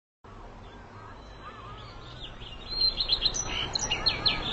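Birds chirping over a steady low background hum. The sound comes in suddenly just after the start, and from about three seconds in a louder run of quick, high chirps begins.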